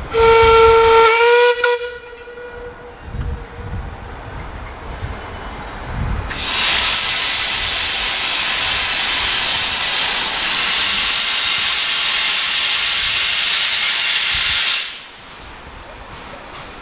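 Narrow-gauge steam locomotive sounds one short whistle blast that rises slightly in pitch as it ends. A few seconds later steam hisses loudly from the engine for about eight seconds, then cuts off sharply.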